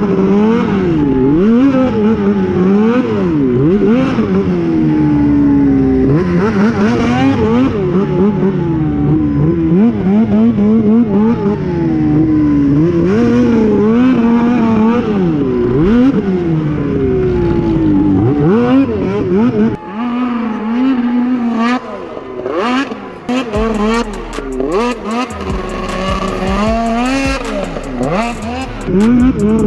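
Two-stroke snowmobile engine revving up and down over and over as the sled is ridden around a snocross track with jumps. Near the end come many sharp clicks.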